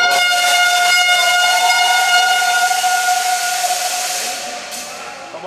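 A loud, long blast of a single steady horn-like tone over a hiss, held for about four and a half seconds and fading out near the end.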